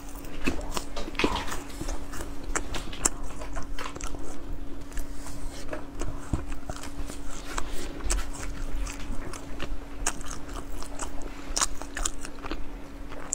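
Biting and chewing of sachima, a puffed fried-dough snack bar, with many small crisp crackles as it is chewed.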